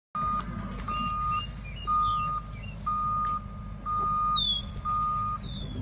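A bulldozer's reversing alarm beeping steadily, about once a second, over the low, steady rumble of its diesel engine. A few birds chirp faintly in the background.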